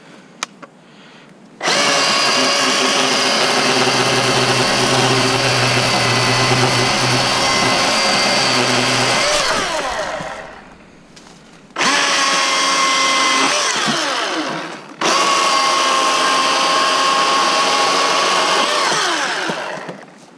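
Milwaukee M18 Fuel cordless chainsaw running at full speed three times, about eight, three and five seconds long. Each run starts sharply as a steady high whine and winds down with a falling whine when the trigger is released.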